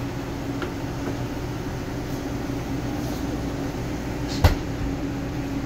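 Sanremo commercial espresso machine running steadily with an even hum while a shot is pulled, and a single sharp click about four and a half seconds in.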